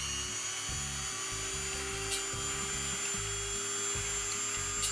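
Dremel rotary tool fitted with a grinding stone, running at a steady high speed: an even high-pitched whine. The stone is spinning freely, backed off just clear of the bandsaw blade's teeth, with a faint click about two seconds in and another near the end.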